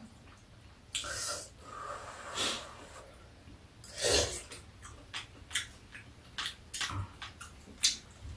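Slurping spoonfuls of hot samgyetang broth: three noisy sucking slurps in the first four seconds, then a run of light clicks of metal spoons against ceramic bowls.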